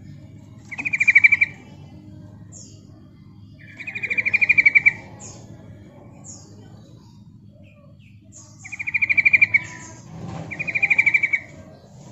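Yellow-vented bulbul calling: four loud, fast chattering trills of a second or less, with short thin high notes between them. It is the female's call that is used to lure males.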